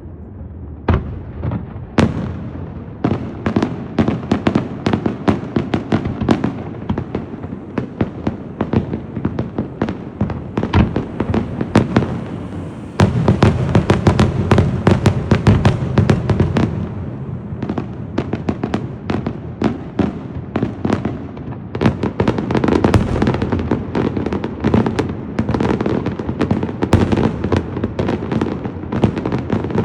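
Fireworks display: a rapid, continuous string of sharp bangs and crackling. The barrage grows denser and louder about halfway through, eases off, then builds again near the end.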